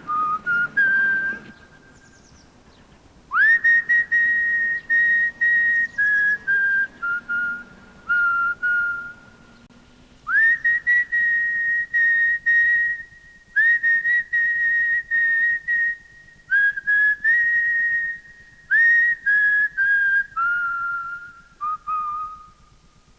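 A person whistling a slow tune in several long phrases with short pauses between them. Some phrases open with a sliding rise into the first note.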